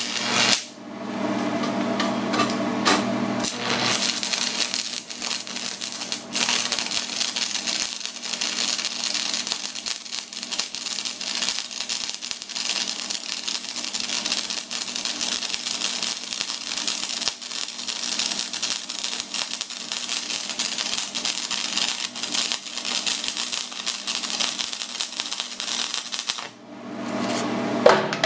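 Shielded metal arc (stick) welding with a 7018 rod on an AC buzz-box welder converted to DC by a bridge rectifier, rod on the negative lead. The arc strikes with a few pops, then runs as a steady crackle and sizzle that the welder says sounds good, and it breaks off about two seconds before the end. The welder's transformer hum sounds at the start and again once the arc stops.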